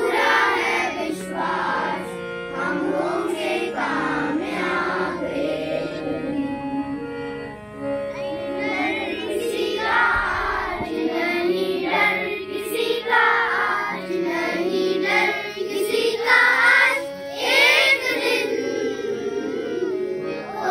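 A group of schoolchildren singing a song together, over steady sustained accompanying tones.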